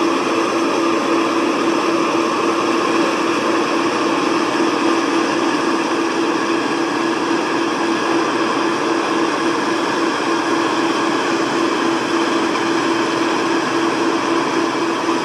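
Tracked combine harvester running steadily while harvesting rice: its engine and threshing machinery make a continuous mechanical noise with one strong, steady hum.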